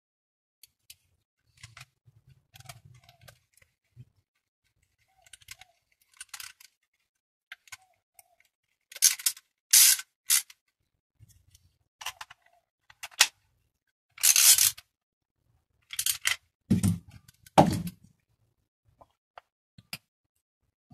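Hands working on a BMX pedal with small hand tools: scattered light clicks and taps, a few short scraping rasps about halfway through, and two dull knocks near the end.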